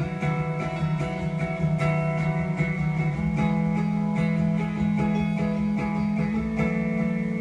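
Guitar music with plucked, held chords that change about three seconds in and again near the end.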